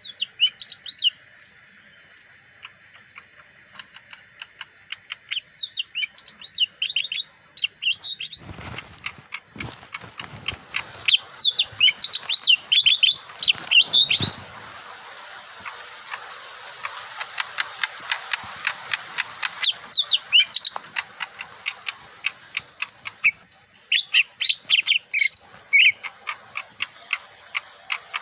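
A small caged songbird singing, with bursts of quick, high chirping notes in rapid series. Between about 8 and 14 seconds in there are a few dull knocks or rustles alongside the song.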